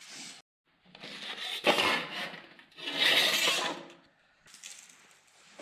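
Two rubbing, scraping strokes, each about a second long and about a second and a half apart, followed by fainter rubbing.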